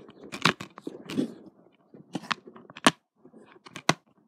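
Handling noise: a string of sharp clicks and knocks with soft rustling between.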